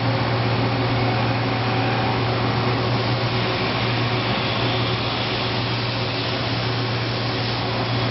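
Mazak Mazatech V10 vertical machining center running, giving off a steady low hum with an even fan-like whir over it.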